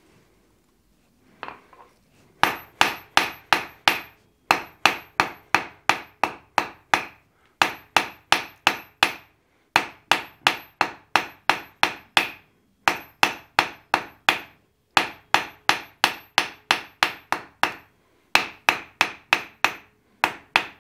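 Hand hammer striking a hot steel bar on the anvil face, drawing out a taper. The blows start about two and a half seconds in and come in quick runs of about four a second, with short pauses between runs, each blow ringing briefly.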